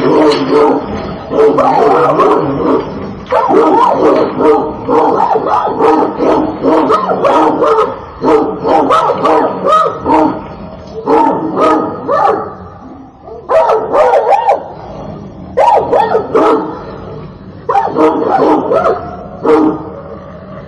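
Angry dog barking, slowed down so the barks are drawn out and lower-pitched, coming in repeated bouts with short pauses between them.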